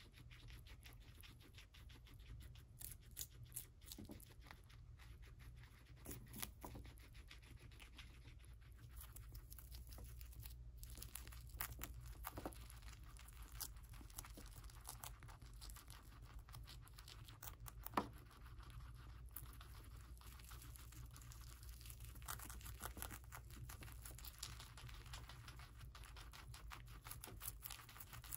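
Two guinea pigs biting and chewing crisp celery stalks: faint, irregular crunching and tearing of the fibrous stalks, with one louder snap a little past the middle.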